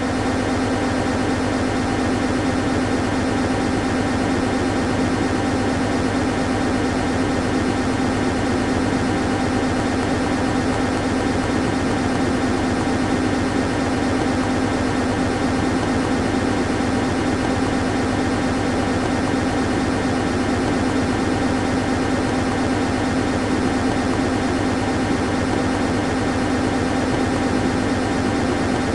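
Aircraft engines running steadily for take-off: a loud, even drone with a strong low hum that holds one pitch throughout, neither rising nor falling.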